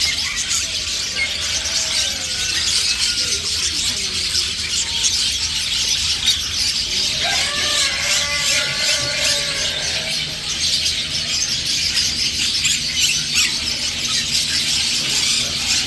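A crowd of caged small birds chirping and squealing all at once, a dense high-pitched chatter that never lets up.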